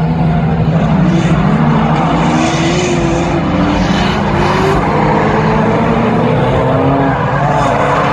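Several drift cars' engines running hard together, their pitches rising and falling as the drivers work the throttle through a tandem drift, over a steady rush of sliding-tyre noise.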